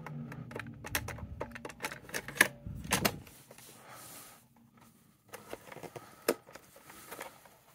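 Plastic clicks and rattles of a Maxell cassette being loaded into a Riptunes portable cassette recorder and its door shut, the loudest clicks a little under halfway through. After a short lull, more clicks follow, with a sharp one about six seconds in as a key on the deck is pressed.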